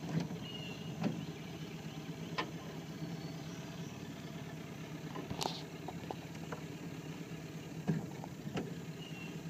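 A boat motor idling steadily, with a few sharp clicks and knocks scattered through it.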